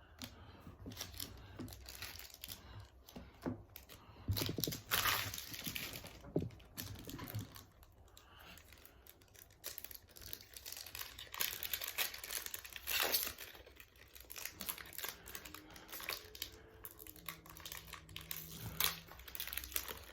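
Foil wrapper of a Yu-Gi-Oh! booster pack crinkling and tearing open in irregular bursts as the pack is handled and ripped, with cards being slid out.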